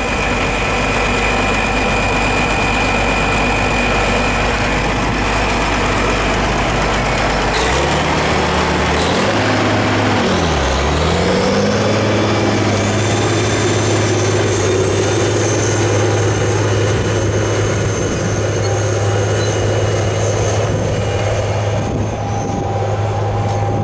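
Caterpillar Challenger MT865C rubber-tracked tractor's diesel engine running steadily under load, pulling a disk harrow through stubble. The engine's pitch dips and comes back up about ten seconds in.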